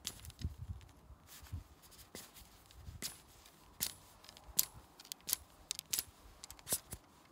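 Wooden ramrod being worked at the muzzle of a Kentucky long rifle during muzzle-loading: a string of sharp clicks and light scrapes, about a dozen, with a few dull thumps in the first two seconds.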